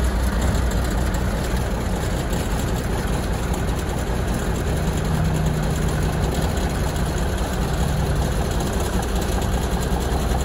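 Mack Cruise-Liner cabover truck's diesel engine idling steadily with a low, even rumble. It is running well on freshly reworked injectors.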